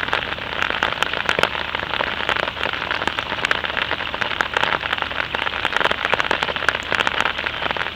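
Steady rain falling on a surface, a dense patter of many small drop ticks over a continuous hiss.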